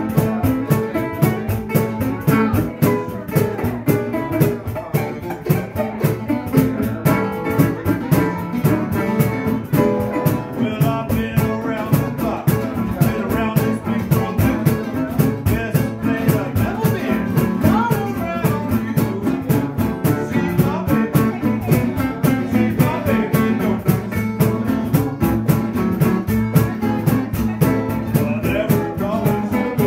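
A small live acoustic band playing: a cajon keeps a steady quick beat under a resonator guitar and acoustic guitars.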